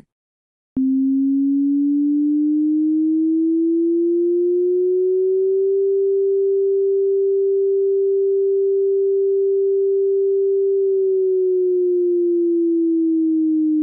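Synthesized tsunami warning siren tone, the distant-earthquake tsunami warning signal, made in Audacity. A single pure tone starts abruptly about a second in, rises slowly over several seconds, holds steady, then begins to fall again near the end.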